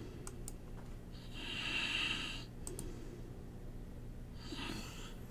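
A few sharp computer mouse clicks while a spreadsheet cell is marked. Between them, a soft hiss lasts about a second in the middle, with a shorter one near the end.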